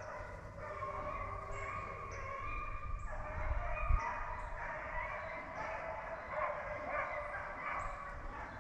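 A pack of deer hounds baying on a trail, several dogs' long drawn-out cries overlapping without a break. A brief low thump about four seconds in.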